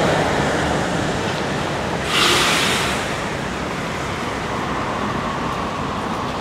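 Steady outdoor noise of wind on the microphone mixed with distant traffic, with a brief louder hiss about two seconds in.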